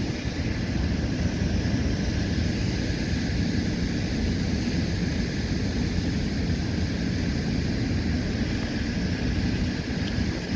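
Steady low rumbling noise of wind buffeting the microphone, with no distinct splash standing out.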